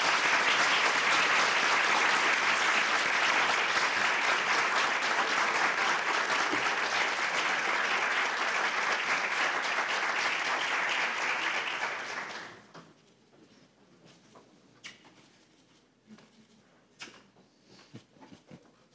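Audience applauding for about twelve seconds, then dying away quickly; after that the room is quiet but for a few faint clicks and knocks.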